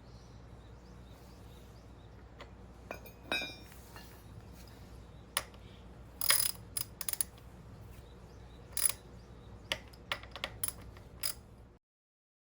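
Irregular metallic clicks and clinks of hand tools and metal parts being handled, some with a bright ring and a quick run of them about halfway through; the sound stops abruptly near the end.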